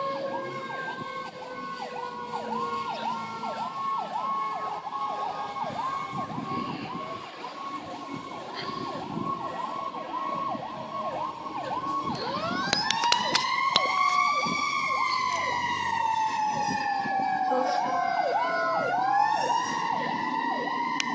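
Fire truck siren on a fast yelp, sweeping about three times a second. About twelve seconds in, a slower wailing siren joins louder, climbing, falling slowly over several seconds and climbing again while the yelp keeps going under it.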